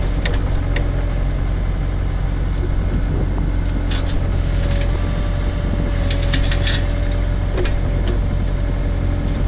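Case/Davis D100 backhoe's engine running steadily with a steady hydraulic whine while the small bucket digs at a tree stump. Scattered cracks and knocks come through, mostly around four seconds in and again a couple of seconds later.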